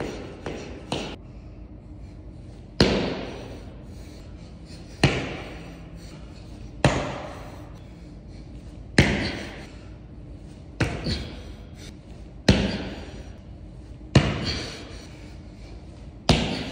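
A sneakered foot landing on a rubber gym floor. It starts with a quick run of single-leg pogo jumps, about two a second, that ends about a second in. Then come single-leg hops: a hard landing thud every two seconds or so, each one ringing on in the large room.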